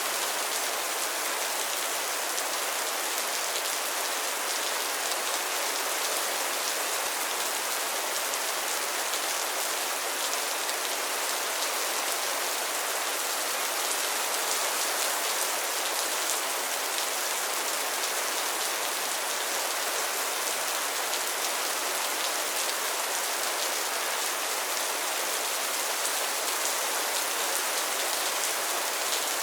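Steady rain falling on a pond's water and lily pads: a dense, even hiss of many small drop hits, with no thunder or other events.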